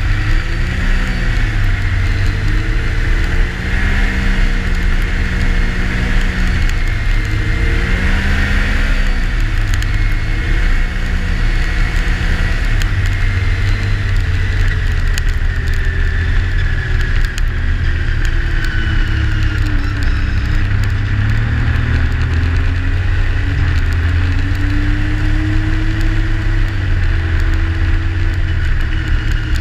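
Yamaha Sidewinder snowmobile's turbocharged three-cylinder four-stroke engine running at trail speed, its pitch rising and falling with the throttle, over a steady rushing noise.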